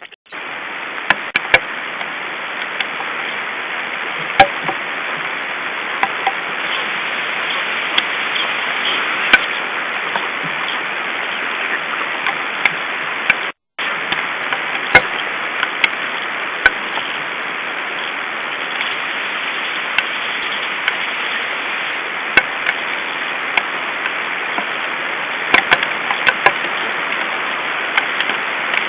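Hail falling on the forest and nest: a steady hiss with irregular sharp ticks of hailstones striking.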